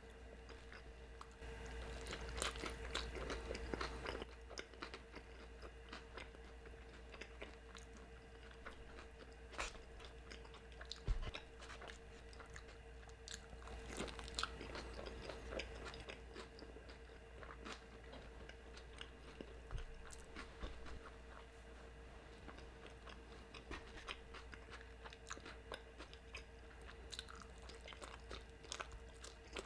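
A person chewing and biting food close to the microphone, with many small irregular mouth clicks and smacks. A faint steady hum lies underneath.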